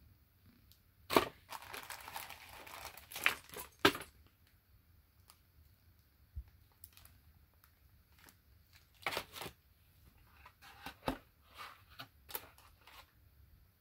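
Clear plastic parts bag crinkling and rustling as it is handled, with sharp clicks of hard plastic parts knocking together. A burst of crinkling runs from about a second in to about four seconds, then shorter rustles and clicks come near the end.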